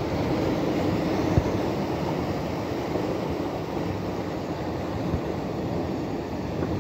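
Steady low rumble of wind and sea surf, with two light knocks, one near the start and one about two-thirds of the way through.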